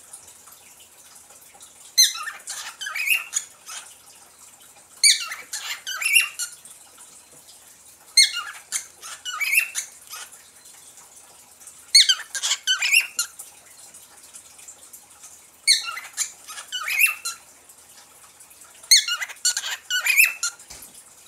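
Pet parrot calling in bouts of rapid, high, squeaky chirps, six bouts each about a second and a half long, repeating every three to four seconds.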